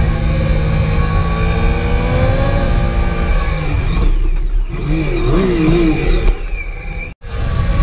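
Sport motorcycle engine heard from the rider's own bike, a Triumph Daytona, at track speed: it rises in pitch under acceleration for the first few seconds, then drops away about four seconds in, and the pitch wavers up and down as the revs change. The sound cuts out abruptly for an instant just after seven seconds in.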